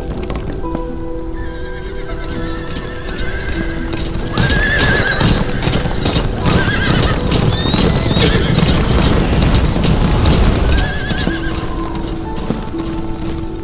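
Horses galloping, with several whinnies in the middle stretch, over background music.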